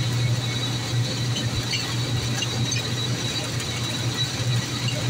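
Bus engine running steadily while the bus drives along, heard from inside the driver's cab: an even low drone with road noise and a thin, steady high whine.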